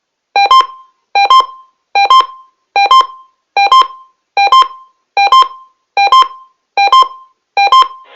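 Electronic alert beeps from Emergency Alert System equipment: ten short two-note beeps, each a lower tone stepping up to a higher one, repeating a little under once a second.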